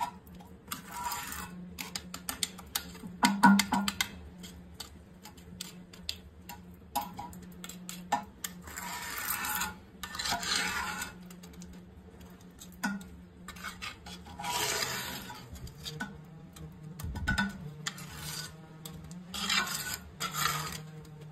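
Small metal trowel scraping and smoothing wet cement around the base of a toilet on a tiled floor, in a series of irregular rasping strokes, sealing the joint between the toilet and the floor. A steady low hum runs underneath.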